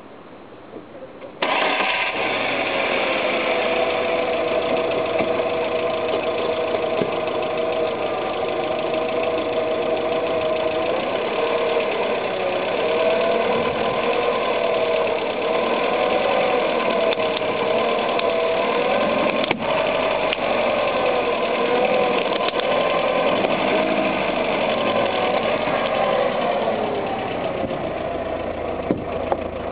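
Volkswagen car engine starting abruptly about a second and a half in and then running steadily. From about a third of the way in its pitch wavers up and down, and it eases off slightly near the end.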